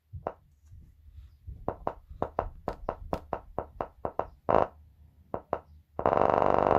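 A freshly re-foamed subwoofer being tested: its cone gives a run of short pops, then longer buzzy blasts, the last starting about six seconds in.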